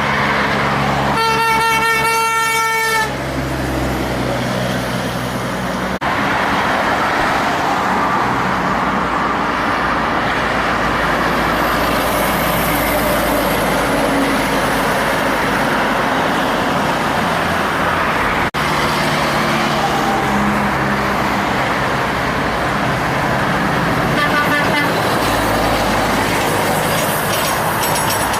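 Heavy semi-trucks passing with their diesel engines running loud and steady, and a truck horn sounding for about two seconds about a second in. A fainter horn sounds briefly near the end.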